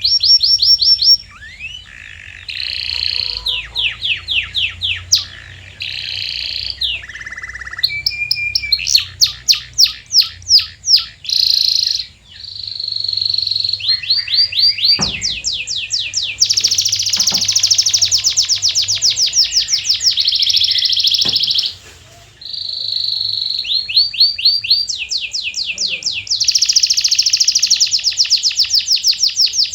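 Domestic canary singing a long song made of phrases of rapidly repeated notes: fast trills and rolls, each phrase at a different pitch, with brief pauses between them.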